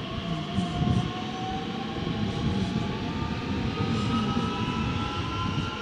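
DB class 442 Talent 2 electric multiple unit passing close by. Its traction drive gives a whine that rises steadily in pitch, over the rumble of the wheels on the rails.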